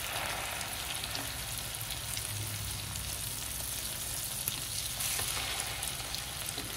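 Egg-coated chicken shami kebabs shallow-frying in hot oil in a pan, a steady sizzle.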